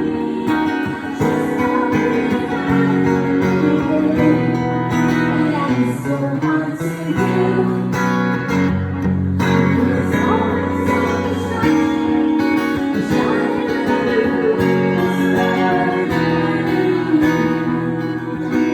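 Live band music led by a strummed acoustic guitar, with chords changing every second or two and a voice singing at times.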